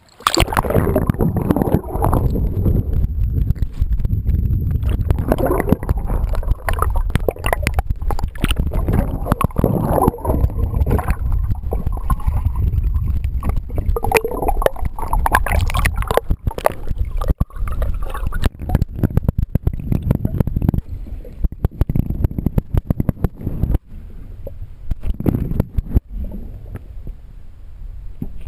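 Water gurgling and rushing over a submerged ION Pro action camera's microphone, a dense muffled rumble with crackling clicks as it moves through the water. The sound starts suddenly as the camera goes under and drops to a softer rumble a few seconds before the end.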